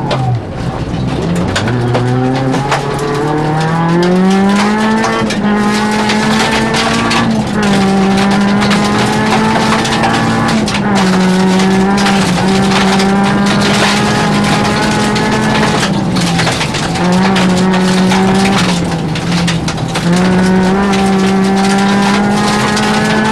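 Rally car engine heard from inside the cabin under hard acceleration: the revs climb steeply over the first few seconds, then stay high with a few brief dips and pick-ups. Frequent knocks and rattles come from the car running over the loose dirt road.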